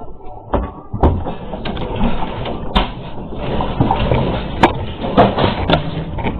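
A room shaking in an earthquake: a continuous rattle and clatter of loose objects and fittings, with sharp knocks and bangs throughout, heard through a CCTV camera's microphone.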